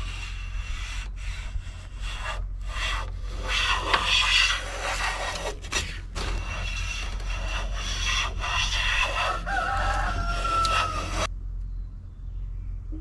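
Restored Bluegrass No. 5 jack plane shaving the edge of a maple board, several long passes of the iron taking a thin cut, with short pauses between strokes. A short pitched sound rises near the end, and the planing cuts off abruptly about eleven seconds in.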